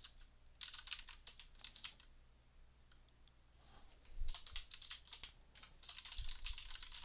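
Faint typing on a computer keyboard: two quick runs of keystrokes with a pause of about two seconds between them.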